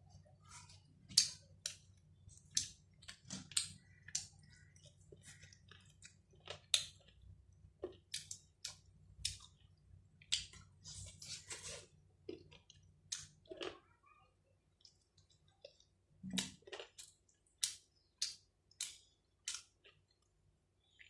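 Close-up eating sounds: wet chewing and lip-smacking on a mouthful of rice and chicken curry, an irregular run of short smacks and clicks.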